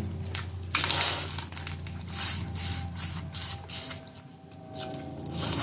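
Hands handling saucy, garlic-buttered crawfish: a run of crinkling, rustling and wet squishing noises that thins out near the end.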